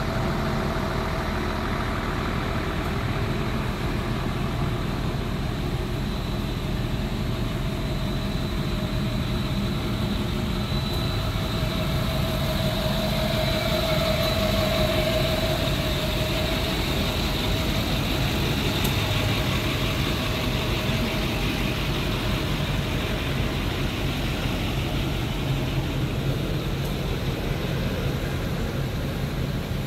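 Emergency vehicles' engines idling at a road scene: a steady, continuous low rumble with a thin high tone over it.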